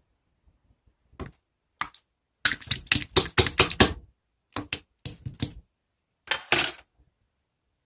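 Typing keystrokes, rapid clicks in several bursts with short pauses between, the longest run lasting over a second and a half.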